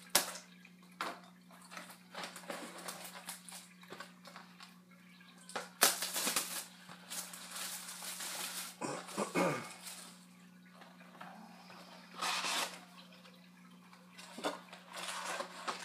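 Plastic shrink wrap crinkling and tearing as a factory-sealed box of trading cards is unwrapped and opened by hand, in several bursts with sharp clicks and handling knocks.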